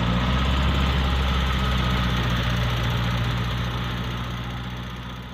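Massey Ferguson 240 tractor's three-cylinder diesel engine running steadily, then fading away over the last couple of seconds.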